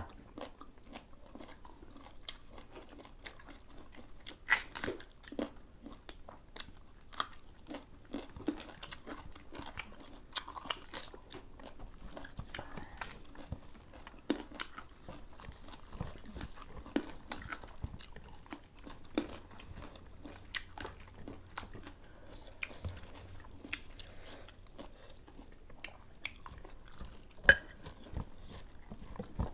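Close-up eating sounds: people chewing and crunching food, largely raw leafy greens and cucumber, with many scattered short crunches, smacks and clicks. One louder crunch comes about four seconds in, and a sharp, loud click near the end.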